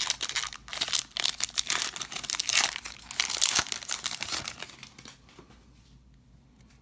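Foil trading-card pack wrapper crinkling and tearing as it is ripped open and the cards are pulled out. The crinkling stops about five seconds in.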